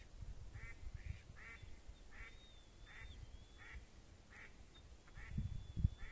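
Live decoy ducks, the call ducks that waterfowl hunters keep, quacking in a slow, even run of about nine quacks, one every half second or so. A low rumble runs under them, with a couple of thumps near the end.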